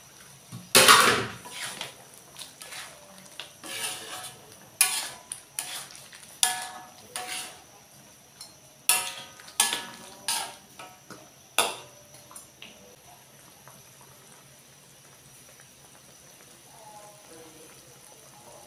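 Metal ladle stirring and scraping in an aluminium wok of chicken in soy sauce, with a string of sharp clanks against the pan, some ringing briefly. The loudest clank comes about a second in, and the stirring stops about twelve seconds in.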